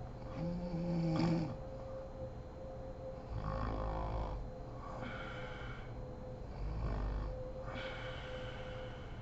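A woman snoring in deep sleep through several breaths, about one snore every three seconds. The snore about three and a half seconds in has a rattling flutter. A steady faint hum runs underneath.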